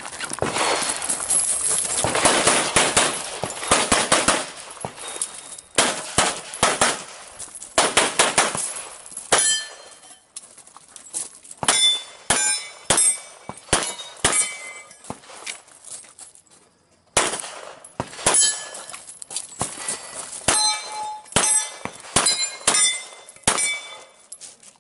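CZ Shadow 2 pistol firing quick strings of shots, with steel targets ringing after some hits. Densest at the start, with a short break about two-thirds of the way through.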